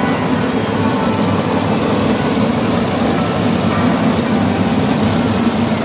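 A full field of winged 410 sprint cars' V8 engines running together as the pack rolls by four abreast, a dense steady engine noise that grows a little louder as the cars pass.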